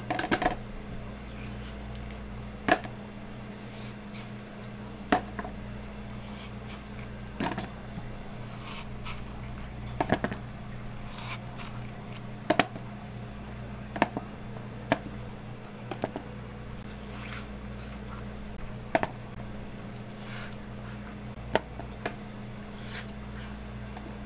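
Stainless melon baller scooping balls out of a halved melon, heard as a dozen or so sharp clicks and taps at irregular intervals as the scoop knocks the melon and the balls land in a plastic tub. Under it runs a steady low hum.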